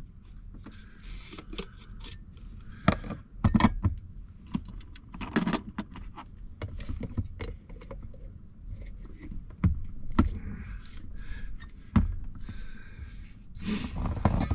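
Clinks, taps and scrapes of Jetboil camp stove gear being handled and fitted together: the cooking cup and burner are worked onto the gas canister. The sounds come as separate short knocks scattered throughout, with a longer scraping clatter near the end.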